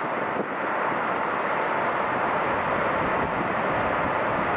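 Airbus A380's four jet engines on final approach, a steady rushing roar that grows a little louder in the first second as the airliner closes in over the runway.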